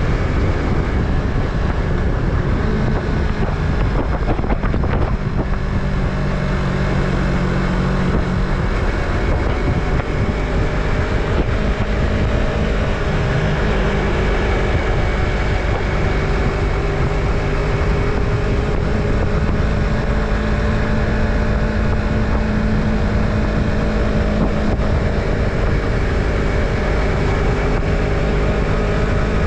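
Yamaha MT-03's parallel-twin engine running at a steady cruise, its pitch drifting slightly up and down, with wind noise on the microphone.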